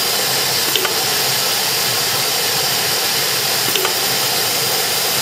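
Aluminum corrugated fin machine running: a steady mechanical hiss and hum with a couple of faint clicks.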